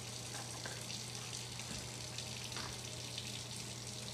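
A steady hiss with a low hum under it, and a few faint rustles as a cat paws at a roll of paper towel.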